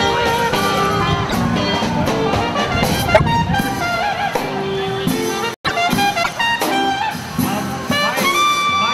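Brass band playing a jazzy tune, trumpets to the fore. The sound drops out for an instant a little past halfway.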